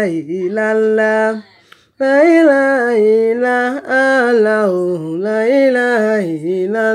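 A woman singing a Yoruba song unaccompanied, in long held, wavering notes, with a short break for breath about a second and a half in.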